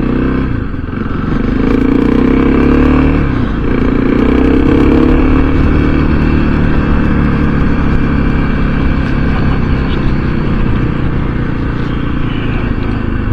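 Motorcycle engine running under way, with wind noise rushing over a helmet-mounted microphone behind a foam chin windbreak. The engine pitch dips and comes back twice in the first few seconds, then holds steady.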